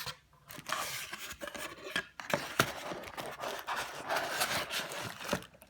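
Cardboard box and packing being handled: steady rustling and scraping with small clicks and knocks as the contents are worked out of the box.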